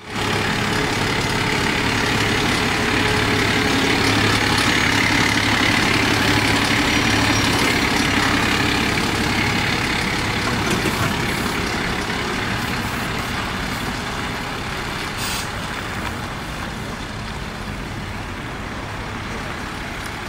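Diesel engine of a DAF police tow truck pulling away with a car in tow, loudest as it passes and then slowly fading as it drives off. A short hiss about fifteen seconds in.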